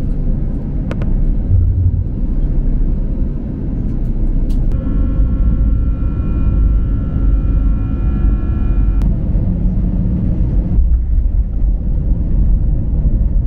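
Airbus A320's CFM56 engines and undercarriage heard from the cabin on the runway roll: a loud, steady, deep rumble, with a steady engine whine for a few seconds in the middle and a few sharp clicks.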